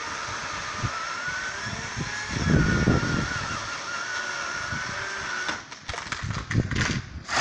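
Two-stroke chainsaw running, its engine note wavering slightly, then cutting off about five and a half seconds in; a scatter of cracks and knocks follows.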